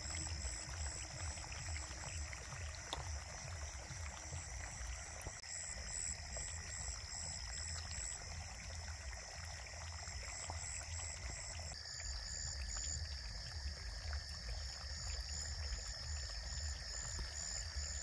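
Water splashing and churning as a dense crowd of fish jostles at a pond's surface, with night insects chirping steadily in a high, rapidly pulsing trill.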